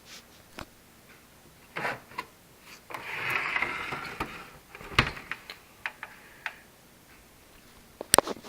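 A screwdriver scraping and prying against the Xbox Slim's plastic case, with scattered clicks, then one sharp snap about five seconds in as a case clip pops loose. A few lighter clicks follow, with a quick pair near the end.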